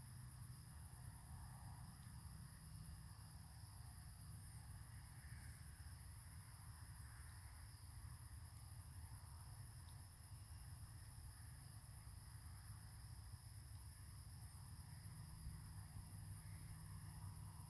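Steady night chorus of crickets and other insects, a continuous high trill, over a low rumble, with an occasional faint crackle from the bonfire.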